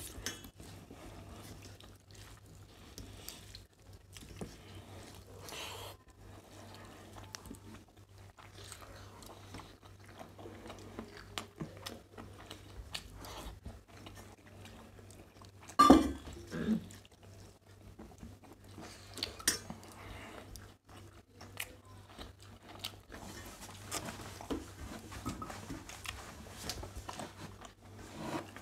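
Two people eating rice and curry by hand from stainless steel plates: chewing, fingers working the rice and small clicks of hands and bowls against steel, with one louder short sound about halfway through.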